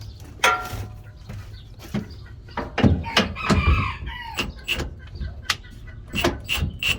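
A rooster crowing in the background, one long call that arches and falls about halfway through, among scattered sharp clicks and knocks.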